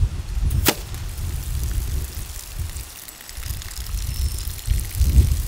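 A broadhead-tipped arrow strikes a water-filled plastic milk jug with one sharp smack less than a second in, punching through it; water then streams and trickles out of the holes, with wind rumbling on the microphone.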